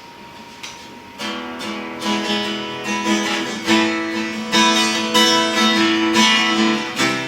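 Acoustic guitar strumming chords, starting about a second in after a brief quiet moment.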